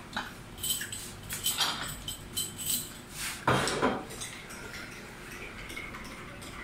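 Glassware and utensils clinking and knocking on a counter while an iced drink is made, a series of short clinks with one louder knock about three and a half seconds in.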